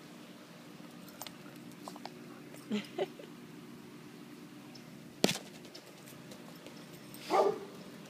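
Akita puppy playing with a soccer ball: two short soft sounds around three seconds in, a single sharp knock about five seconds in, and a brief louder sound near the end, over a steady low hum.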